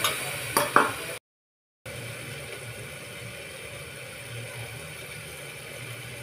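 Onion and spice masala frying in oil in a pressure cooker: a steady sizzling hiss, with a steel spatula scraping and knocking against the pot twice just under a second in. The sound drops out for about half a second, then the steady sizzle goes on.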